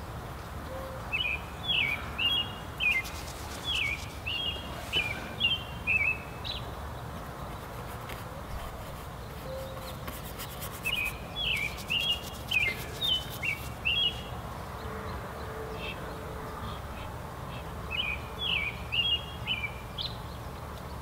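A songbird singing three runs of quick whistled phrases: one about a second in, one midway and one near the end, over a steady low outdoor background noise.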